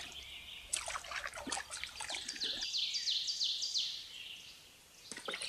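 A small dog lapping and splashing water as it drinks from a shallow creek, with the creek trickling underneath. About two seconds in, a bird calls a quick run of about six falling high notes.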